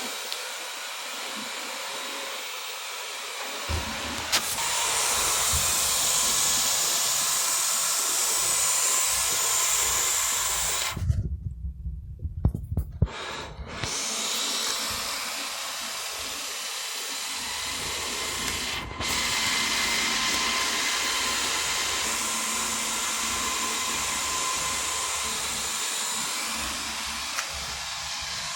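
Wyze robot vacuum running, a steady whir of its suction fan and brushes. About eleven seconds in, the whir cuts out for a couple of seconds while a few low thumps sound, then it comes back and runs on steadily.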